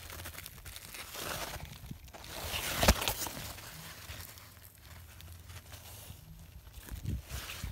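Rustling and handling noise as a handheld camera is moved close through pumpkin leaves and grass, with one sharp knock about three seconds in.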